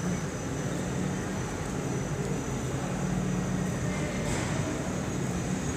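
Steady machine drone with a thin, steady high whine above it.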